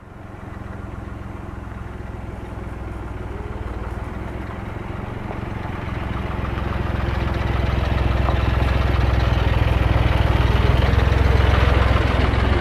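A vehicle engine idling steadily, a low, even hum that grows louder from about six seconds in.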